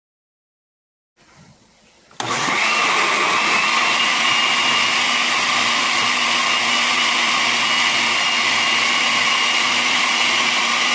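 Countertop blender motor running steadily, blending a liquid batter of eggs, condensed milk and milk. It starts suddenly about two seconds in, after near silence.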